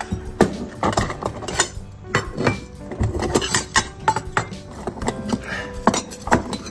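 Repeated irregular clinking and clattering of dishes and utensils, with background music underneath.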